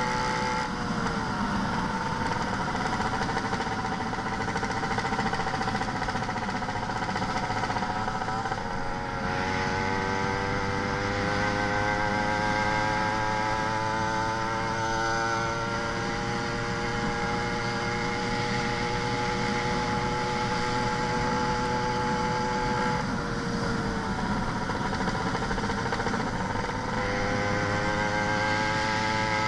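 YD100 two-stroke motorized-bicycle engine with a big expansion-chamber exhaust, running and changing pitch with the throttle. Its speed drops about a second in, climbs around nine seconds, holds, then drops and climbs again near the end.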